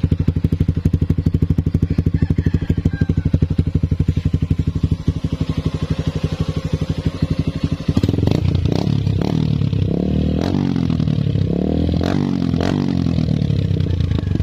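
Suzuki Gixxer FI's single-cylinder engine running through a newly fitted Akrapovic-branded full-system exhaust: a steady idle with even exhaust pulses, then from about halfway it is revved several times, the pitch rising and falling with each blip.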